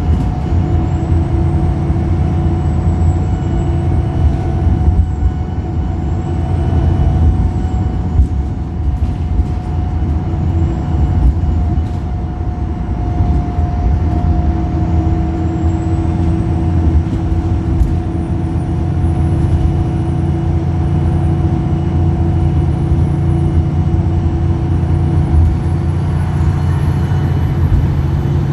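Wright Pulsar single-deck diesel bus running with a steady engine drone, and a faint high whine that wavers and climbs toward the end.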